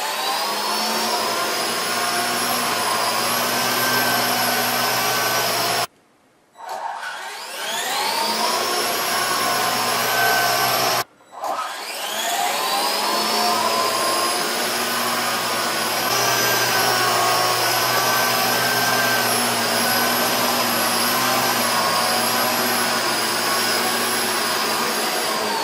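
Electric motors and rotor blades of a coaxial RC helicopter whining in flight. The pitch rises as the rotors spin up, holds steady, breaks off abruptly about 6 and 11 seconds in, rises again each time, and falls as the rotors spin down near the end.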